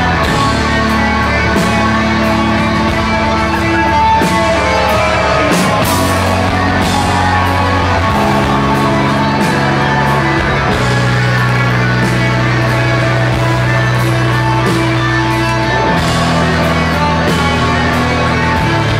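A live heavy rock band playing loud: distorted electric guitars and bass holding long, heavy chords that change every few seconds, with crashing cymbals over the top.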